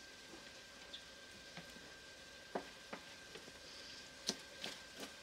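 Chef's knife knocking on a plastic cutting board while cooked chicken thighs are cut small: several soft, irregularly spaced taps over a faint steady hiss and hum.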